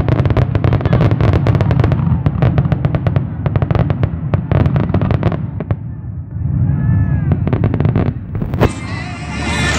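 Aerial fireworks going off in a dense barrage of rapid cracks and bangs over a low rumble, thinning out about six seconds in to a few scattered bangs, with a last loud crack near the end.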